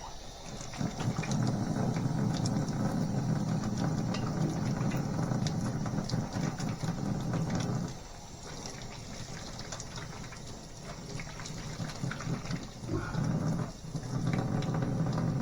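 Water running from a tap while hands are washed: a steady stream for about seven seconds, quieter for a few seconds, then running strongly again near the end.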